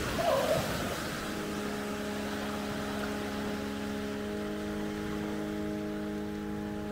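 A boat engine running steadily at an even pitch, with a short louder sound about half a second in.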